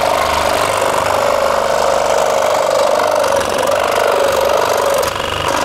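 Einhell TC-SS 405 E electric scroll saw running steadily, its reciprocating blade cutting through a thin plywood sheet; the sound eases slightly about five seconds in.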